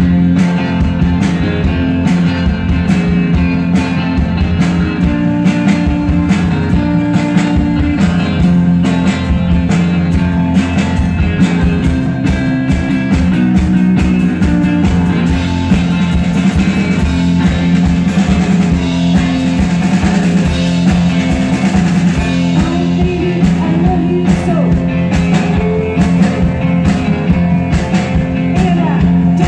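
A live guitar-and-drums duo playing a rock song: electric guitar over a drum kit keeping a steady beat, loud throughout.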